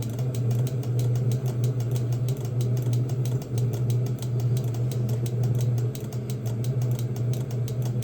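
Diesel heater with a modified burn chamber running: a steady low hum of the burner and blower, with a fast, even flutter over it. It is the different running sound that the changed burn chamber gives.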